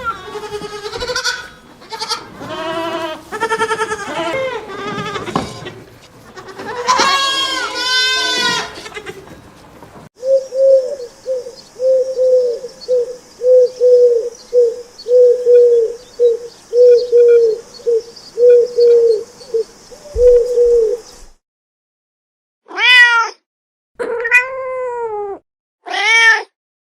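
Animal bleating for the first several seconds, then a cat mewing in short calls about once a second over a steady hiss. After a brief silence come three separate, longer meows.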